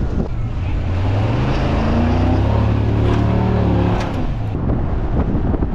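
Truck engine running steadily as the truck drives over beach gravel and sand, with rough tyre and gravel noise from close by the front wheel. The engine note fades out near the end while the tyre noise goes on.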